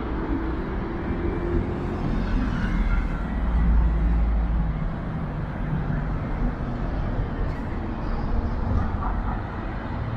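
Street traffic noise, steady throughout, with a low rumble that swells about four seconds in and then fades.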